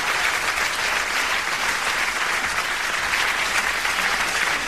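An audience applauding, a steady dense clapping.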